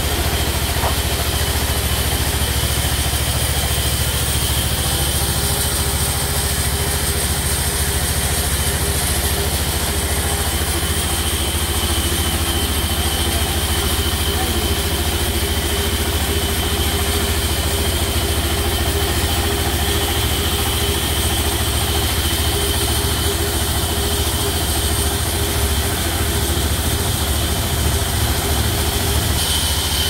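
Sawmill vertical band saw running steadily with no load, not yet cutting. It makes a constant low drone with a thin high whine.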